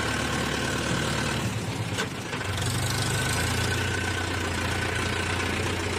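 Mahindra Yuvo 575's four-cylinder diesel engine running steadily under load, pulling an overloaded trolley of soil. About two seconds in, the engine note dips briefly with a sharp click, then picks back up.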